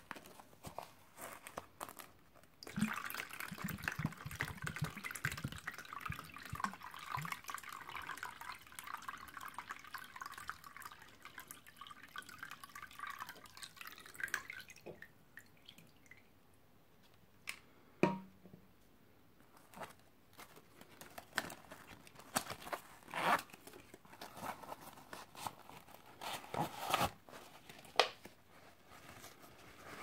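Water poured from a plastic squeeze bottle spatters onto a Cordura nylon pouch and into a plastic tub for about ten seconds. After that comes quieter handling and rustling of the wet pouch, with a few sharp clicks.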